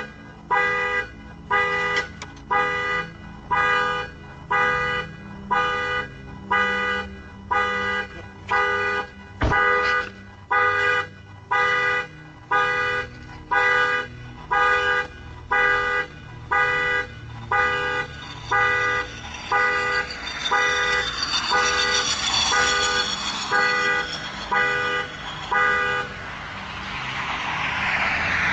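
Car alarm sounding the car's horn in steady, evenly spaced blasts, about three every two seconds. The honking stops near the end as a rising rush of noise takes over.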